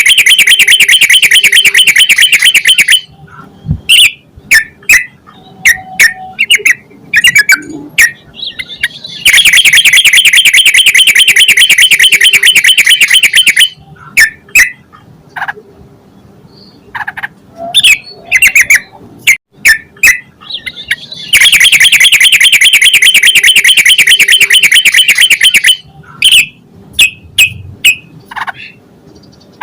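Yellow-vented bulbul (trucukan) singing: three long, very rapid chattering trills of about four seconds each, one already under way at the start, one in the middle and one near the end, with short, sharp separate notes in between.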